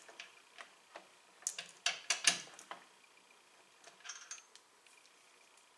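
Light, irregular clicks and taps of a small part and its screws being handled and fitted by hand, most of them in the first three seconds, with a short scraping rattle about four seconds in.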